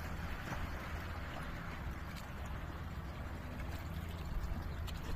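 Footsteps wading through water, the water sloshing and splashing, over a steady low rumble.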